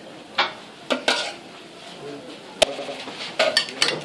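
Metal spoon clinking and scraping against a dish as tuna is scooped and spread onto a mlawi flatbread: a string of sharp clinks, several close together near the end.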